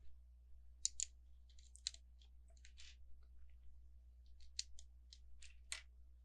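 Small plastic LEGO pieces clicking as they are handled and pressed together, a scattering of short, sharp ticks at uneven intervals with the loudest near the end.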